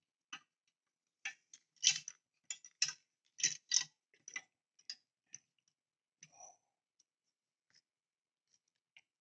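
Small screwdriver driving a screw into a die-cast model chassis part: a run of sharp, irregular clicks and taps as the screw is turned, thinning out to a few faint clicks after about five seconds. The screw binds partway in, which the builder takes for a hole not tapped deep enough.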